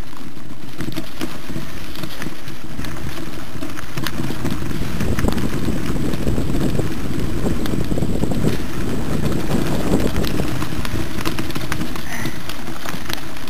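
Steady wind rumble on the microphone of a camera riding a mountain bike down a rough dirt trail, with frequent small clicks and rattles from the bike over the ground.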